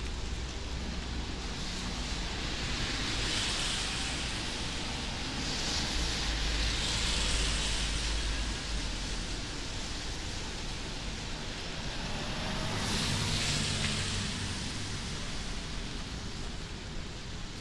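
Cars passing on a rain-wet city street: tyre hiss swells up and fades away three times over a steady low traffic rumble and background hiss.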